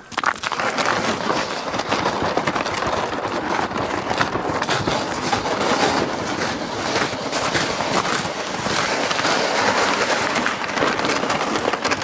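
Footsteps crunching on snow-covered lake ice, a steady run of short crunches as a person walks.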